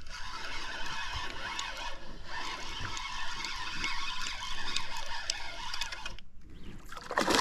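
Spinning reel being cranked fast, its gears whirring steadily as a big hair jig is retrieved. The whirring stops about six seconds in for the pause in the retrieve. A louder burst of noise starts right at the end.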